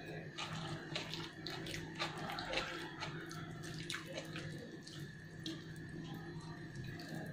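Close-miked wet eating sounds: chewing, and fingers squishing and mixing rice with rendang on a steel plate, heard as a dense string of short, sticky clicks.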